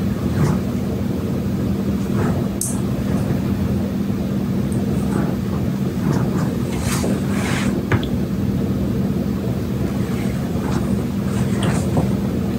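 A steady low mechanical hum, even in pitch, with faint scattered ticks and rustles over it.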